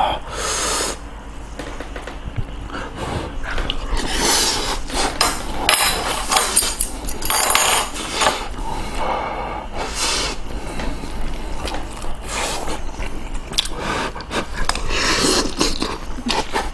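Close-up eating sounds of kimchi stew and rice: a spoon clinking and scraping against the dishes, between irregular chewing and slurping.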